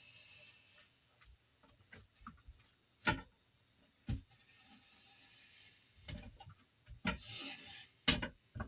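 A curved object rubbed firmly over an adhesive silicone heater pad to press it down onto a printer bed, scratchy rubbing strokes broken by a few sharp knocks.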